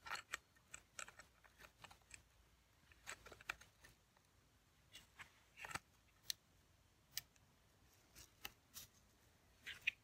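Faint, scattered clicks and small scrapes of a vacuum cleaner brush roller's end insert being worked by hand back into the roller, irregular and spaced out.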